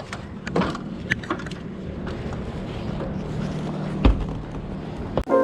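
Power screwdriver running steadily for a couple of seconds, driving a roofing screw into the metal ridge cap, with light clicks of handling on the sheet metal and one loud thump about four seconds in.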